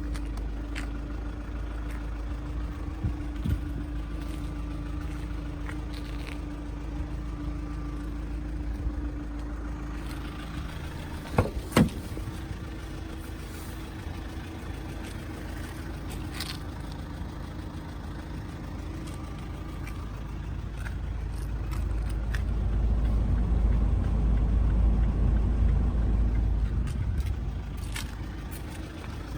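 Steady low rumble of a motor vehicle running, with a couple of sharp clicks a little before the middle. The rumble swells louder for several seconds about two-thirds of the way through, then eases off.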